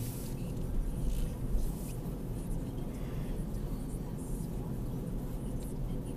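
Steady low road and engine rumble inside a moving car's cabin, as picked up by a dashcam microphone.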